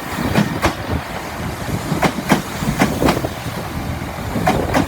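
Train wheels clattering over rail joints and points, a run of irregular sharp knocks over a low rumble.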